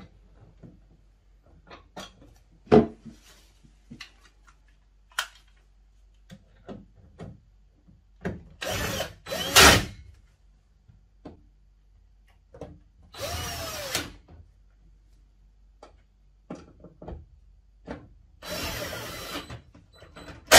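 Cordless drill-driver driving screws to fasten a suitcase wheel assembly, running in three short spells of a second or so each. Light clicks and knocks come between the spells, and a sharp knock at the very end.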